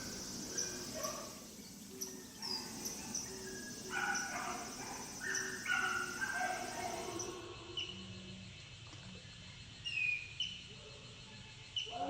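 Short pitched animal calls, repeated irregularly and varying in pitch.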